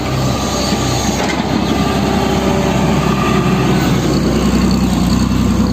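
Heavy construction machine's diesel engine running steadily with a dense mechanical rattle, growing slightly louder.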